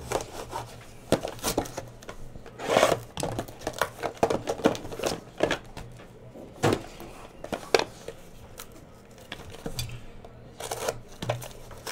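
Trading-card hobby box and foil packs being handled: an uneven string of light taps, clicks and rustles as the packs are pulled out and moved about.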